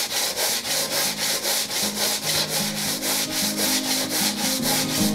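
Hand-sanding the wooden body of an old Stanley wooden level with sandpaper, in quick, even back-and-forth strokes, about five a second. The sanding runs over freshly applied glue, so the sanding dust packs into the small cracks as a filler.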